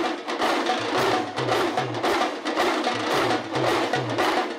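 Damru hourglass drums played together in a fast, steady rattling rhythm.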